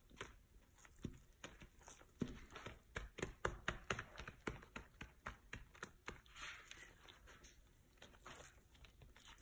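Carbon fiber fabric being pressed and smoothed by hand against the mold blocks: faint, irregular rustles and small clicks.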